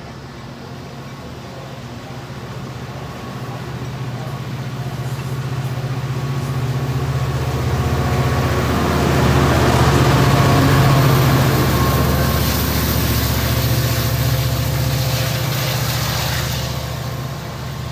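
Metra commuter train of bilevel cars passing close by, its diesel locomotive at the rear running with a steady drone. The sound builds to its loudest as the locomotive goes by about ten seconds in, then fades as the train pulls away, with wheel and rail noise.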